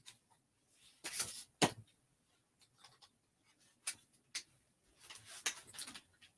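Handling noise from fitting a drawing board onto an Artristic studio easel: a scraping rustle and a sharp knock in the first two seconds, two clicks near the middle, and more scraping near the end.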